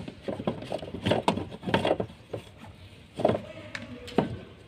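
Irregular clicks and knocks of hard plastic as the fuel filter assembly is fitted by hand into the fuel tank's access opening, with the sharpest knocks about a second in, near two seconds and around three to four seconds in.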